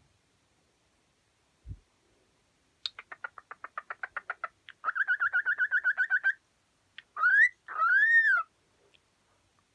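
Cockatiel vocalizing: a run of quick ticking notes, then a fast warbling trill, ending in a two-note wolf whistle, a short rising note followed by a longer note that rises and falls.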